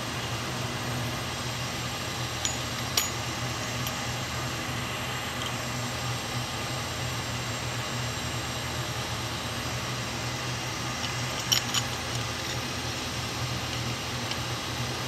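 Light clicks and clinks of brass gauge-glass nuts, washers and the glass sight-glass tube being handled and fitted, a pair about three seconds in and another pair near twelve seconds. Under them a steady machine-room hum.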